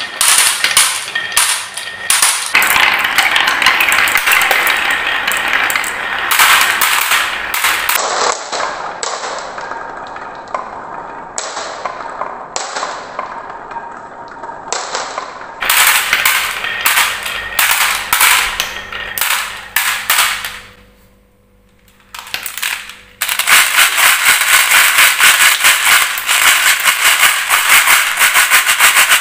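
Glass marbles rolling and clattering down carved wooden zigzag tracks, clicking against the wood and against each other in dense runs of knocks. About three-quarters through, a steady, dense rattle of many marbles jostling together in a plastic toy dump truck's bed.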